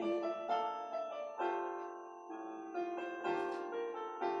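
Piano playing a short instrumental passage between sung lines of a worship song: chords and single notes struck every half second or so, each ringing and fading.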